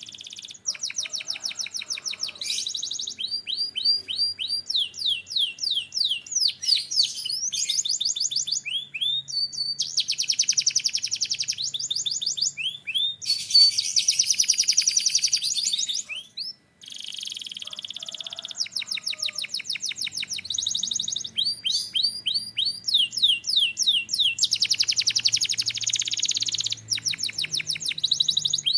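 Domestic canary singing a long song of rapid, repeated trills and rolls in phrases a few seconds long. The song breaks off briefly about halfway through.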